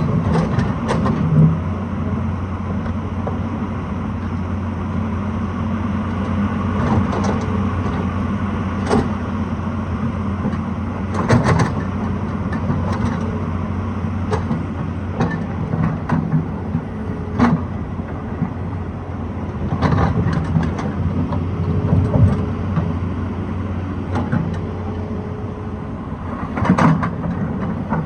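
Hydraulic excavator's diesel engine running steadily, with sharp knocks and clanks every few seconds from the working machine.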